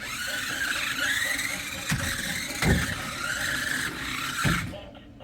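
Electric motors of a small RC stunt car running hard, their whine rising and falling in pitch as the car speeds and spins, with three sharp knocks. The whine cuts off suddenly near the end.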